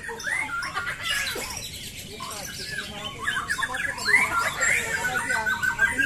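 Several caged white-rumped shamas (murai batu) singing at once: a dense, unbroken tangle of overlapping whistles, rapid chirps and sliding notes.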